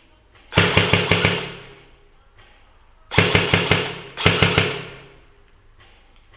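Airsoft electric rifle firing on full auto: three rapid bursts of shots, the first about a second long and the next two shorter, close together.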